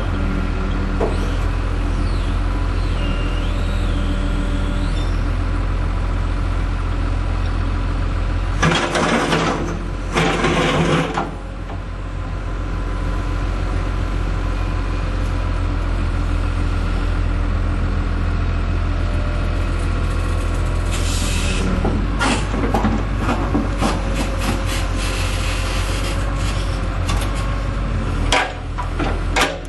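John Deere 225C LC hydraulic excavator's diesel engine running steadily, with two loud bursts of hissing about nine and ten seconds in. In the last quarter a run of sharp metallic clanks and knocks sounds over the engine, as from the boom and bucket being worked.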